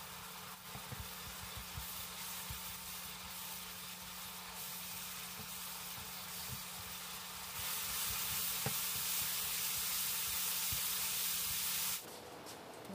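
Ground beef frying in soy-sauce seasoning in a nonstick pan, sizzling steadily, with scattered clicks and scrapes of a spatula stirring it. The sizzle grows louder about eight seconds in and cuts off suddenly near the end, over a steady low hum.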